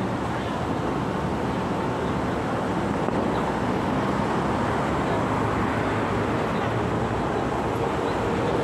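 Steady city street noise: a continuous hum of road traffic.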